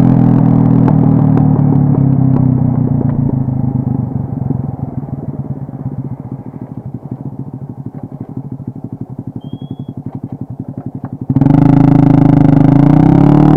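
Modenas Kriss underbone motorcycle's single-cylinder four-stroke engine, heard from the rider's seat. It runs under throttle at first, then from about four seconds in the throttle is closed and it settles to a quieter idle with evenly spaced firing pulses. Near the end it jumps back up loudly as the throttle is opened to pull away.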